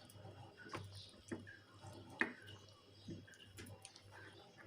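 Faint, scattered light clicks and soft wet taps of hands handling a raw duck stuffed with freekeh while closing up its opening.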